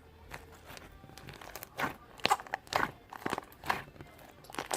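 Gold pearl slime being squeezed and pressed by hand, giving irregular sharp popping and crackling clicks, busier and louder in the second half.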